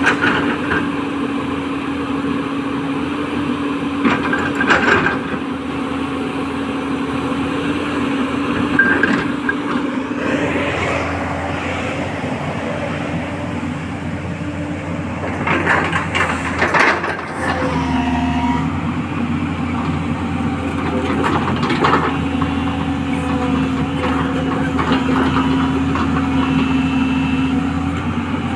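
A 210LC crawler excavator's diesel engine runs steadily under hydraulic load, with a few metallic clanks and knocks from the working machine. The loudest burst comes about sixteen seconds in.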